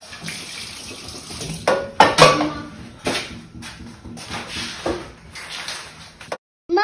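Pots, pans and dishes clattering as they are handled: a run of sharp knocks, loudest about two seconds in, where a couple of strikes ring briefly like metal. It cuts off suddenly near the end.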